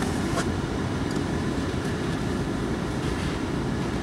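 Steady low rumble inside a moving car: engine and tyre noise heard from the cabin.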